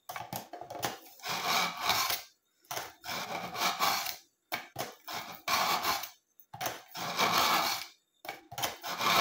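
A kitchen knife blade drawn again and again through the medium-grit slot of a BAUM ZINDECH ZRT-400 manual pull-through sharpener: about eight scraping strokes, one every second or so, each a short rasp of steel against the sharpening elements.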